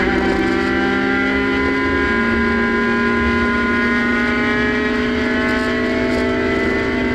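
Hill-climb race car's engine pulling hard under load in one gear, heard from inside the cabin, its pitch climbing slowly and steadily.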